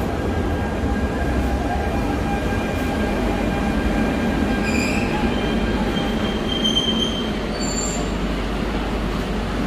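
Barcelona Metro 2000/3000-series train running into an underground station platform, with a steady rumble of wheels on rail. Short high squeals come from the wheels and brakes about halfway through and again near the end as it slows.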